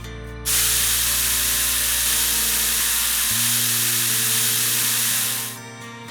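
A loud, steady hissing sound effect that starts suddenly, holds for about five seconds and fades out, over light background music.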